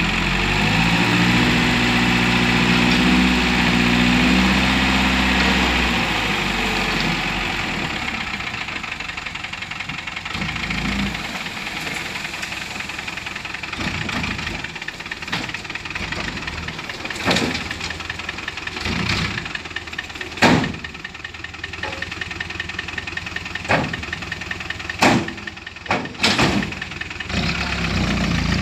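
Six-wheel dump truck's diesel engine running at raised revs for about the first six seconds as the loaded bed is tipped, then settling lower. In the second half come a series of sharp knocks and bangs, the loudest about twenty seconds in.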